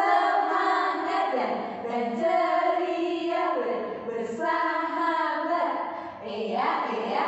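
A group of women's voices singing a children's song together, in short held notes.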